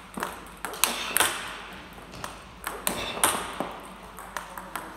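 Table tennis multiball backhand drill: a quick, irregular run of sharp clicks as balls are fed, bounce on the table and are struck by the bats, several a second.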